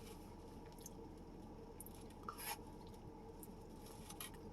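A person chewing food with a few faint, wet mouth clicks, over a low steady hum.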